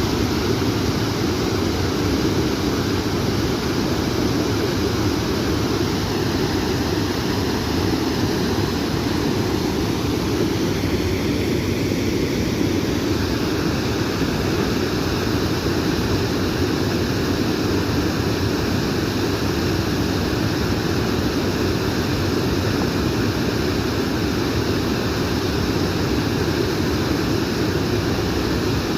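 Water rushing steadily: a constant, unbroken noise with a deep body, no change across the whole stretch.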